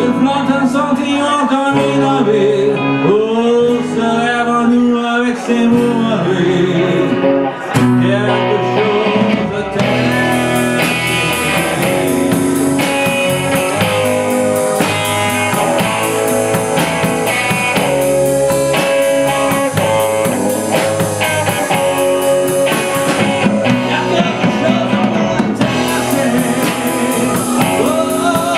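A live band plays a song on acoustic guitar, electric guitar, bass guitar, Roland electric keyboard and drums. About ten seconds in, the drums fill out with steady, evenly spaced cymbal strokes.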